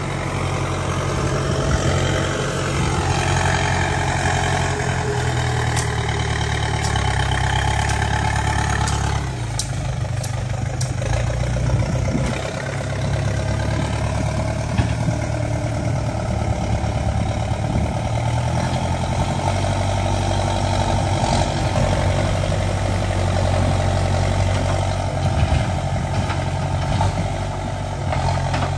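Backhoe loader's diesel engine running steadily as it cuts a dirt road. The engine note rises about two seconds in, holds higher, then drops back about nine seconds in and runs on with small swells.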